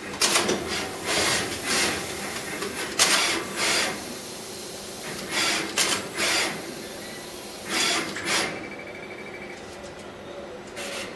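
SMT pick-and-place machine running: a steady machine hum under short bursts of noise, often in pairs and irregularly spaced, as the placement head moves and sets components on the circuit board.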